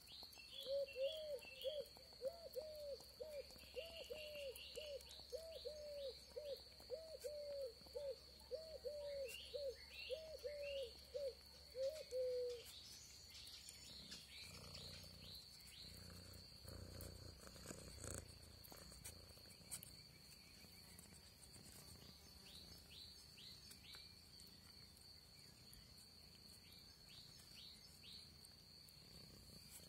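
Outdoor animal sounds: a steady high insect trill with scattered short bird chirps over it. For the first twelve seconds or so, a low pitched call repeats about twice a second and then stops; it is the loudest sound here.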